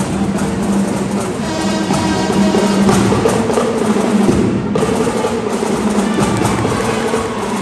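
Marching band playing: brass horns and drums together in a steady tune.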